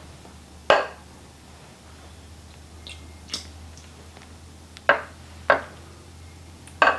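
A small bowl knocking and tapping against a slow cooker's stoneware crock as a cornstarch slurry is poured and tapped out over the chicken. There are four sharp knocks, one about a second in and three in the last couple of seconds, with lighter taps in between.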